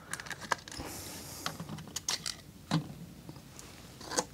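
Scattered light clicks and taps of small hard-plastic toy parts being handled and unscrewed during disassembly, with a couple of louder knocks, one near the middle and one near the end.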